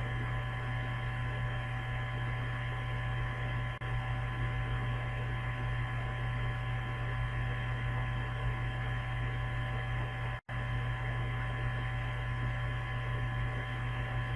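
Steady electrical mains hum and buzz, made up of many level tones with the strongest low down. It cuts out for an instant twice, near four seconds in and again near ten and a half seconds.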